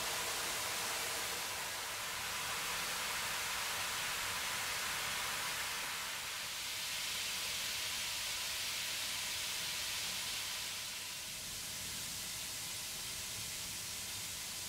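Fifteen Bikkura Tamago bath balls fizzing together as they dissolve in a tub of water: a steady hiss that shifts slightly in tone about six and eleven seconds in.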